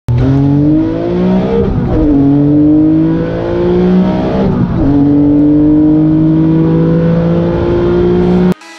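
First-generation Acura NSX's V6 engine heard from inside the cabin, pulling hard under acceleration. Its pitch climbs, drops with an upshift about two seconds in and another near five seconds, then climbs again. The sound cuts off suddenly near the end.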